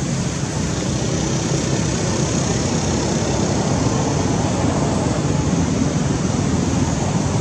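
Steady, loud outdoor background noise: a continuous low rumble with a hiss above it and no distinct events.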